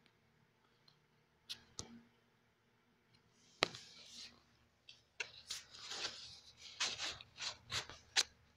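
Faint sharp clicks, then a quick irregular run of rustling, scraping sounds, about two or three a second, in the second half.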